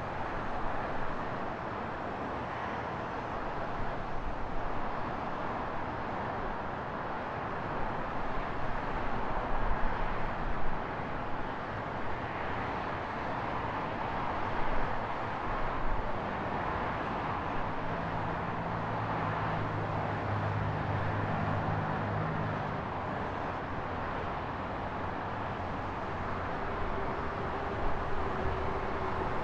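Street traffic noise: a steady wash of passing vehicles and road noise. A vehicle's low engine hum stands out for a few seconds past the middle.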